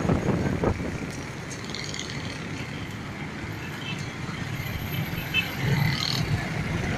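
Motorcycle fitted with an HHO hydrogen kit feeding its carburettor, running while being ridden, with a steady low rumble of wind and road noise and other traffic passing.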